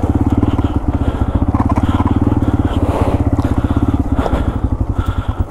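Yamaha TW200's single-cylinder four-stroke engine chugging at low revs off-road, the beats slowing and spacing out about four seconds in. Scattered crackles of brush breaking against the bike.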